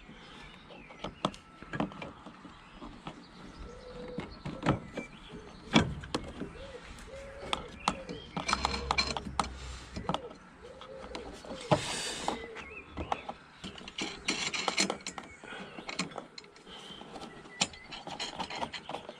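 Metal clicks and scraping from turning and tightening the threaded adjuster of a strut tower brace by hand and with tools, irregular sharp clicks with a few short rasping scrapes.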